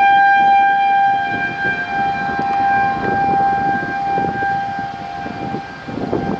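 Outdoor tornado warning siren sounding one steady, held tone that eases off somewhat in the second half, with wind buffeting the microphone.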